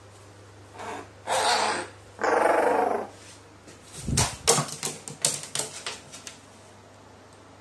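Crow giving a low, rolling, rattling 'gorororo' call, a short one and then a longer one about a second long. It is followed by a rapid flurry of sharp clicks and knocks as the bird leaves its perch and lands on a table.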